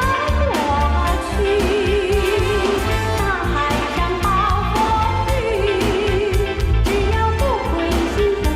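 Mandarin pop song karaoke track playing: a wavering melody line with vibrato over a steady bass and drum beat.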